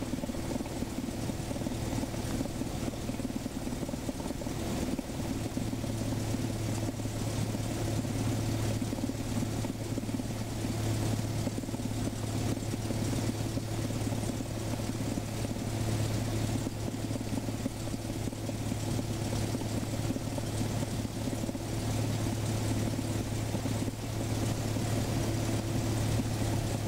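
Light aircraft's engine and propeller making a steady drone heard inside the cockpit, a low hum that grows a little stronger about five seconds in.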